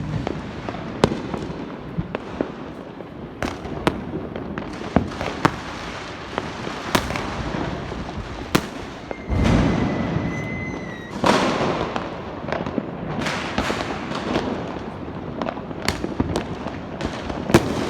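Diwali fireworks and firecrackers going off all around: scattered sharp bangs over continuous crackling, about a dozen standing out. About nine seconds in a louder, denser burst comes with a steady whistle lasting about two seconds, and another dense burst follows at about eleven seconds.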